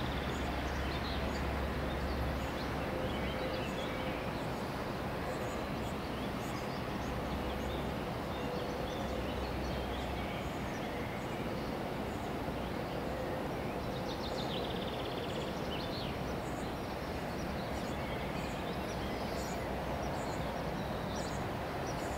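Ballast train of hopper wagons hauled by an electric locomotive, pulling away into the distance: a low rumble that weakens after about ten seconds, under steady outdoor background noise with birds chirping now and then.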